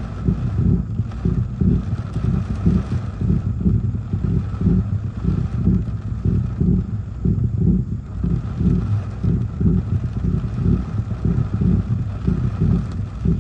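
Gusty storm wind buffeting, a loud low rumble that surges in quick, uneven pulses several times a second.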